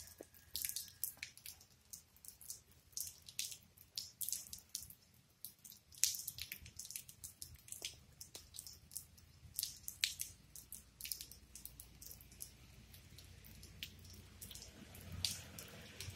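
Rainwater dripping close by in light rain: irregular sharp drip ticks, a few a second. A low rumble builds near the end.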